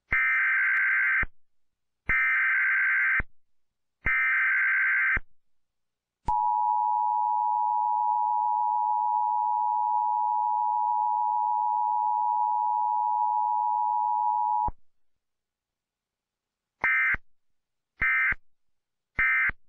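Emergency Alert System broadcast tones. Three one-second bursts of screechy data-header tones, then the steady two-tone attention signal for about eight seconds, then three short bursts marking the end of the message.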